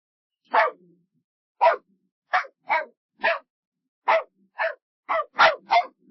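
A dog barking: about ten short barks with silence between them, spaced irregularly and coming quicker near the end.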